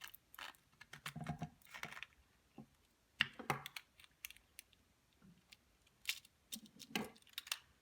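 Small rare-earth magnet balls clicking and snapping against each other in irregular bursts as a cube of them is opened up and pulled apart by hand.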